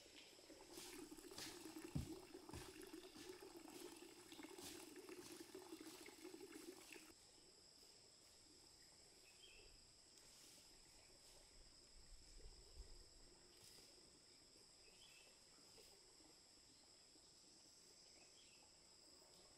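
Near silence: faint outdoor ambience with a steady high-pitched insect drone. A low hum and light ticks underneath stop suddenly about seven seconds in.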